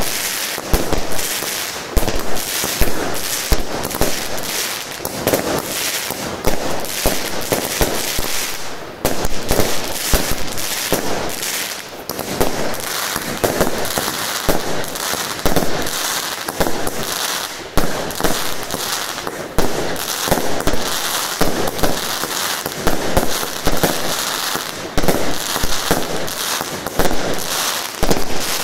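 Two Vuurwerkmania Unabomber firework cakes firing together: shot after shot launching, each breaking into a dense crackling burst, so that the crackle runs on almost without a break. The firing rate of each cake is on the slow side.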